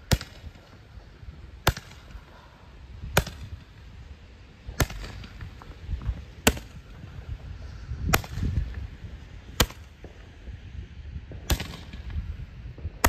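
A handheld Roman candle firing its shots one after another, a sharp pop about every second and a half, each launching a single fireball.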